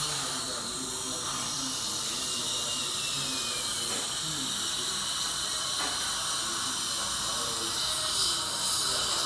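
Dental suction and handpiece hissing steadily with a thin high whine, as a fresh filling is adjusted between bite checks. Faint murmured voices sit underneath.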